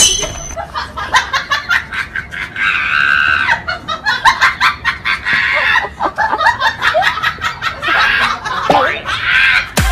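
A person laughing hard in fast, high-pitched cackles, with a few sliding squeals near the end.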